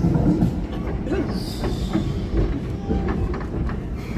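Former Brisbane City Council electric tram running along its track, heard from inside the car: a steady low rumble from the wheels and running gear, with scattered knocks and clicks.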